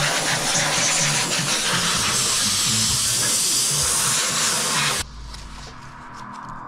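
Compressed-air blow gun blowing a steady, loud hissing blast along the gap between the front bumper and fender, stopping abruptly about five seconds in.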